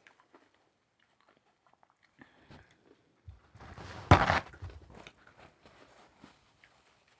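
Close-miked eating: scattered small mouth and food clicks, then a loud bite with chewing about four seconds in, followed by a few softer chews.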